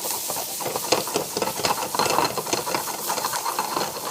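Butter sizzling in a hot frying pan, with a rapid run of utensil clicks from stirring the eggs.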